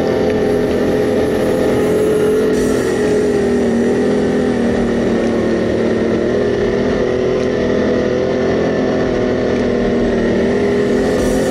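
Quad bike (ATV) engine running at a fairly steady speed while riding a dirt forest track, heard from on board, with a steady hum over rumbling track noise.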